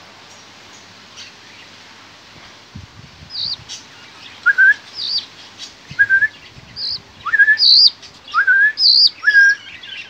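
Young hand-fed songbird chicks giving begging chirps: short, upward-sliding calls, some mid-pitched and some high, repeated about once a second starting about three seconds in.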